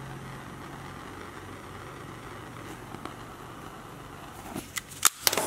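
Small handheld gas torch burning with a steady hiss, ending with a few sharp clicks near the end.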